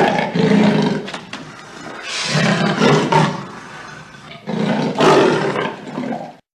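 A tiger roaring in three long, rough bursts with short pauses between them. The first is already under way and the last breaks off shortly before the end.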